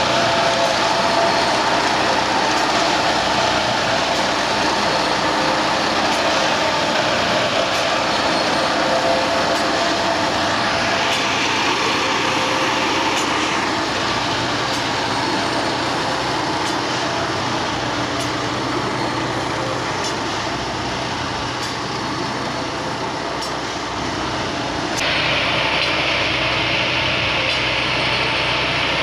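Heavy railway track maintenance machines running on the rails: steady, loud mechanical running noise. A higher hiss comes in for a few seconds about eleven seconds in and again near the end.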